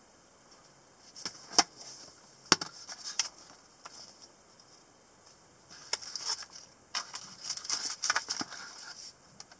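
Unboxing handling noise: a cardboard box lid, a paper manual and a plastic device being moved by hand. Sharp clicks and knocks come about a second and a half and two and a half seconds in, then a denser run of rustling and tapping from about six to nine seconds in.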